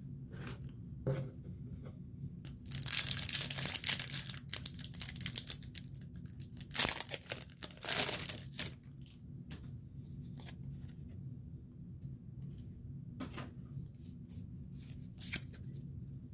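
A foil Pokémon booster pack wrapper being torn open and crinkled: a long ripping tear about three seconds in, two shorter crinkles around seven and eight seconds, then light clicks of the cards being handled.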